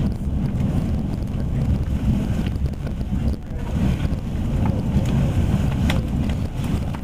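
Electric commuter train running at speed, heard from inside the carriage: a steady low rumble of wheels on rails, with a few faint clicks.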